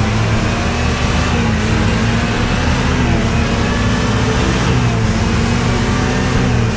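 A motor vehicle's engine running steadily with road noise, a loud even hum.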